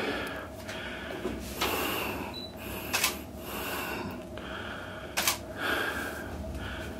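Steady room noise in a cramped metal compartment, broken by two sharp clicks, about three seconds in and again a little over five seconds in.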